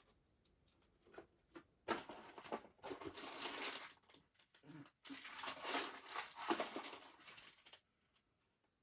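Hands rummaging through a box of small parts, rustling and rattling in two long stretches with scattered clicks, starting about two seconds in and again about five seconds in, then stopping near the end.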